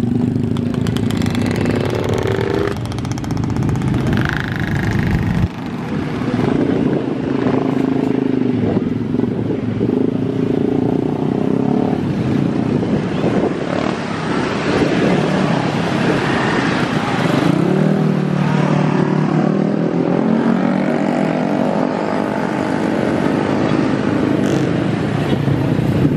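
Many small motorcycle and scooter engines running close by in slow, dense traffic, rising and falling in pitch as riders ease the throttle on and off.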